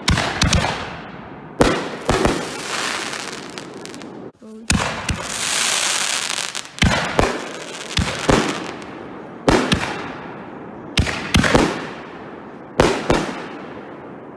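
Consumer fireworks going off: a string of sharp bangs, many in pairs about half a second apart, each trailing off, with a sustained high crackling hiss about five seconds in.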